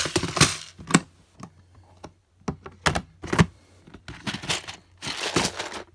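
Clear plastic storage boxes of Lego pieces being handled and set down: a string of sharp plastic clicks and knocks, with a longer rattling clatter about five seconds in.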